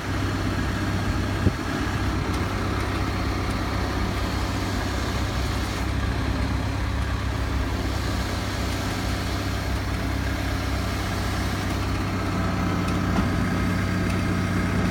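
Lorry engine running steadily with the power take-off engaged, driving the hydraulics of a Fassi F50 truck-mounted loader crane. A single sharp click about one and a half seconds in.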